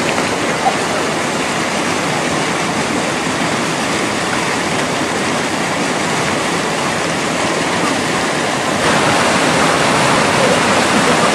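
Fast-flowing river water rushing steadily; it gets louder about nine seconds in.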